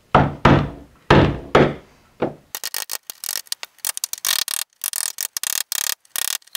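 Hammer driving a steel chisel into the wooden corner of a window frame: about four sharp blows in the first two seconds, then a run of quicker, lighter strokes as the chisel pares off curls of wood.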